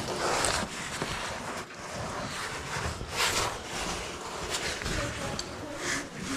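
A caver squeezing through a narrow rock passage: clothing and gear rustle and scrape against the rock walls. There are louder swishes about half a second in and again about three seconds in, with small scuffs and ticks between them.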